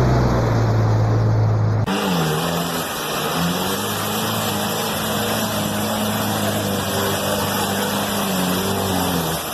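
Off-road vehicle engines running. About two seconds in, a deep steady engine hum cuts off abruptly and is replaced by engine sound whose pitch rises and falls gently, as with light throttle.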